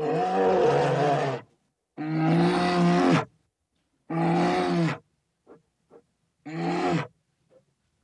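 Bear roaring four times, each roar about a second long and separated by dead silence, with a couple of faint clicks between the last roars.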